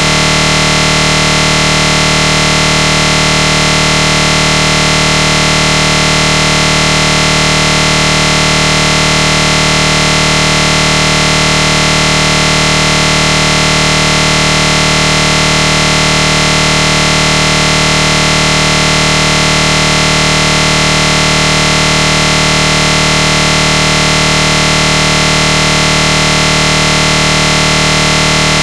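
A loud, steady buzzing drone of many fixed pitches at once, unchanging throughout.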